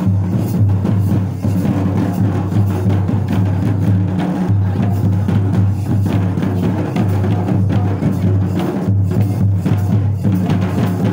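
Shoulder-slung barrel drums played by hand, beating a continuous dance rhythm with deep booming strokes, for a Santal folk dance.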